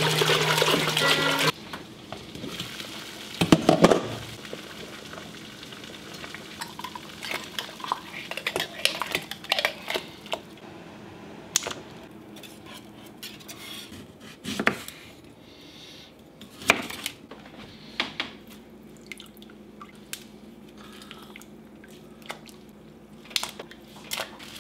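Water poured into a stainless steel stock pot for about a second and a half, then scattered clinks and knocks of a ladle and citrus against the pot as the liquid is stirred and limes are dropped in.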